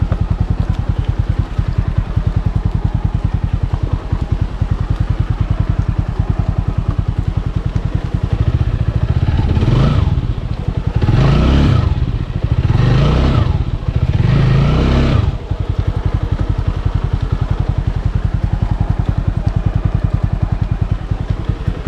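Motorcycle engine chugging at low revs with an even rapid pulse, as on a slow off-road trail. Between about 9 and 15 seconds it revs in three throttle bursts, then drops back to the steady chug.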